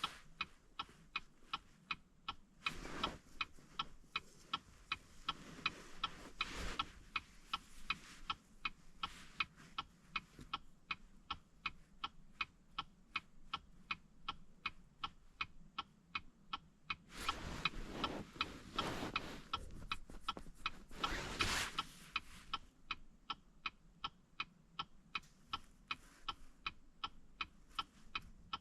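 Car's turn-signal indicator ticking steadily, about two and a half ticks a second, with handling and rustling noises around 3 s, 6–7 s and 17–22 s.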